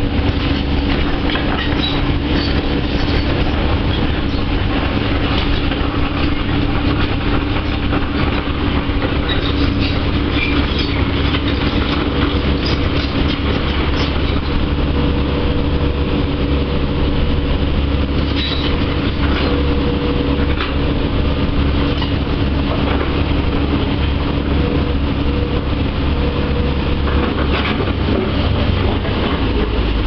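Komatsu hydraulic excavator's diesel engine running steadily, a constant hum over a low rumble, with its vibratory pile-driver attachment at rest.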